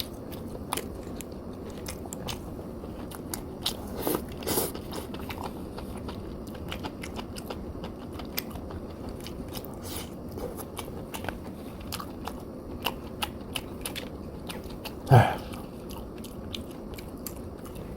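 A person chewing and biting food close to the microphone, with many small mouth and utensil clicks, and one louder thud about fifteen seconds in.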